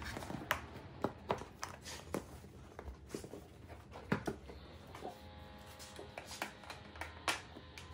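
Plastic front fairing of a KXD ATV being handled and pressed into place around the dashboard: irregular light clicks and taps of plastic, the sharpest near the end.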